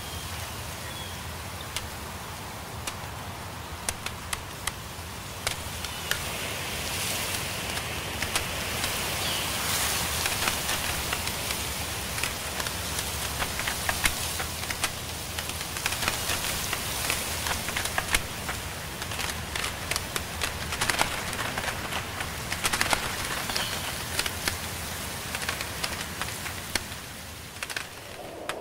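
A steady hiss scattered with many sharp crackling clicks, growing a little louder about six seconds in, with a few faint high chirps.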